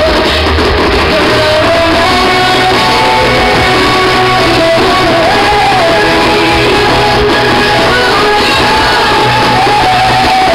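Loud music with a singing voice carrying a wavering melody over a steady bass line.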